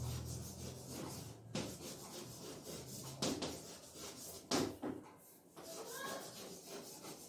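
Chalk writing on a blackboard: scratchy strokes with several sharp taps of the chalk against the board.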